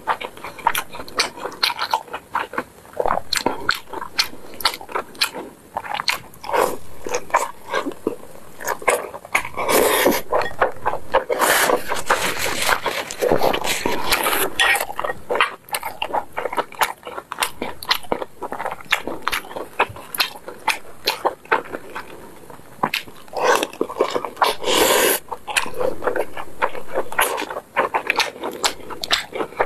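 Close-up eating sounds: wet mouth smacks and chewing of braised pork belly and rice, many small clicks in quick succession, with a metal spoon scraping and knocking in the bowl. A few louder noisy stretches stand out, about a third of the way in and again near the end.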